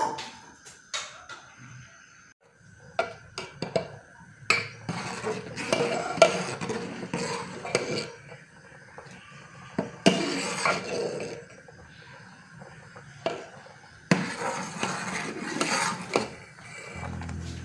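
Metal spoon and ladle clinking, knocking and scraping against cooking pots and pans, in irregular clattery bursts while food is stirred and turned.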